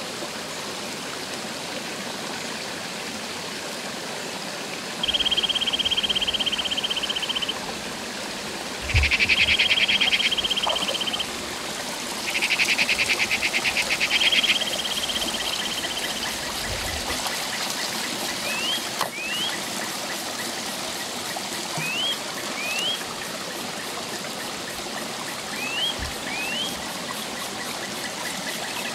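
Shallow rocky stream running steadily. Over it, a loud, high, finely pulsing buzz comes in four long bouts through the first half. Later, pairs of short rising chirps repeat several times.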